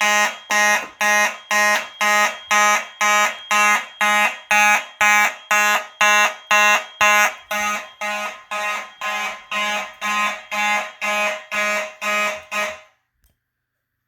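Mechanical fire alarm horns sounding in march-time code, a buzzing blast about twice a second, set off by a smoke detector in alarm. A faint thin high tone runs underneath for the first half, and the horns cut off suddenly near the end.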